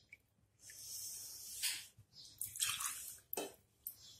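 Buttermilk poured from a small glass bowl into a glass bowl of semolina batter, splashing in several short pours.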